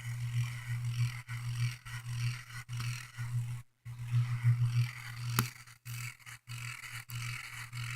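Ceiling fan running on low with a faint scratching from its motor bearing over a steady low hum: a dry bearing in need of lubrication.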